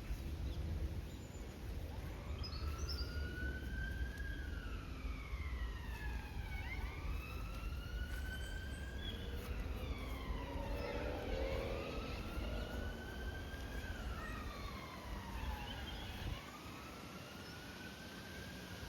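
Emergency vehicle siren in a slow wail, its pitch rising and falling over and over, with two wails overlapping out of step. A low rumble underneath stops abruptly about three seconds before the end.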